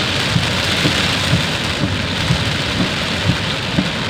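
Heavy rain falling steadily, an even hiss with irregular dull knocks of larger drops landing close by, roughly twice a second.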